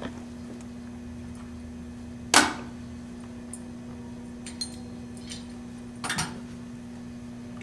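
A solid object clatters sharply into a lab bench sink about two seconds in. A few faint knocks follow, then a softer rattle near six seconds as a hand reaches into the drain. A steady low hum runs underneath.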